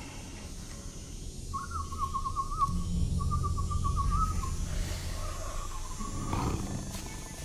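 Jungle film soundtrack: a warbling animal call in quick repeated trills over a low rumble, with a short swell of noise about six seconds in.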